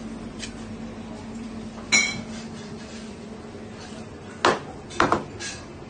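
A large knife knocking and clinking against a cutting board while a rack of ribs is cut apart between the bones: one ringing metallic clink about two seconds in, then two sharp knocks about half a second apart near the end, over a steady low hum.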